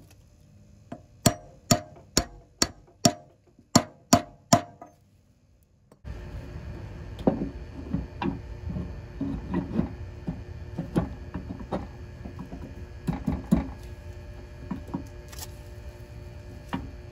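A hammer tapping a socket to drive a new seal into a Kubota mower deck spindle housing: about eight sharp strikes, a little under half a second apart, each with a short ring. After a cut, quieter scattered clicks and knocks of a snap ring and parts being fitted on the spindle housing.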